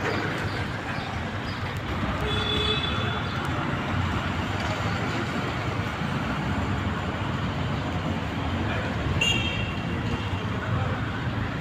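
Steady street traffic noise from passing vehicles, with two short high-pitched toots, one about two seconds in and another near the end.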